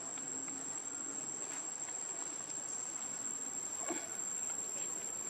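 Steady high-pitched drone of insects, crickets or cicadas, with a faint even background hiss.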